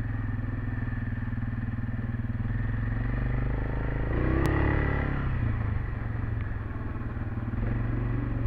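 Quad (ATV) engine running under way on a dirt trail, rising in pitch and getting louder about four seconds in, then settling back to a steady pace. A single sharp click about halfway through.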